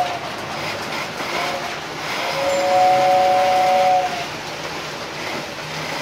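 Model train's horn sounding a short two-note toot, then a long two-note blast, over the steady rumble of the model train running on three-rail track.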